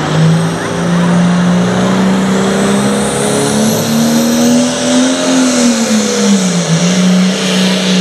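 Turbocharged diesel engine of a super farm class pulling tractor revving at the start line. Its pitch climbs over about five seconds, dips about six seconds in, then holds, with a high turbo whistle above it.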